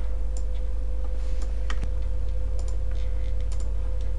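A handful of light, scattered clicks from working a computer's mouse and keys, over a steady low electrical hum.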